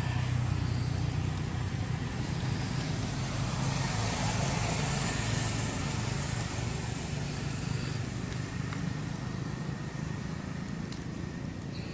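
Steady low rumble of outdoor background noise with a constant hum underneath, swelling about four seconds in and easing off again.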